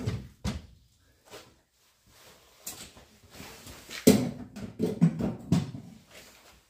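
Scattered knocks and clunks of a Land Rover Defender's heater box being handled and worked out of the bulkhead. A few light clicks come first, then a run of louder bumps about four to five and a half seconds in.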